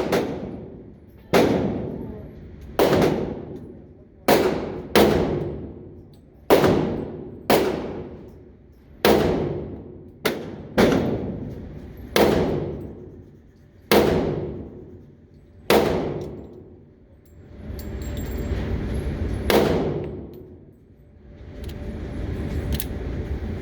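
Smith & Wesson M&P Shield .40 S&W pistol fired in steady slow fire, about a dozen sharp shots roughly a second apart, each ringing out and dying away over about a second. After a pause near the end comes one more shot over a low rumbling noise.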